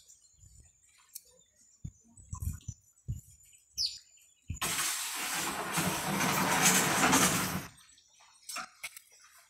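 A loud, even rushing noise lasting about three seconds, starting about halfway through, with a few faint taps before and after it.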